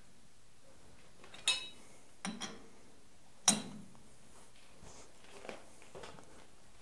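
A few sharp metallic clinks with a short ring, the loudest about three and a half seconds in, from a chuck key on the jaw screws of a four-jaw lathe chuck as a part is adjusted to run true.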